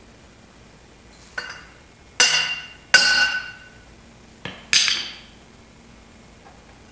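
Steel jack handle run through the cam bore of a Vortec 350 (5.7 L) small-block Chevy block, striking the rear frost plug to knock it out: three hard metallic clanks with a ringing tail, and two lighter taps before them.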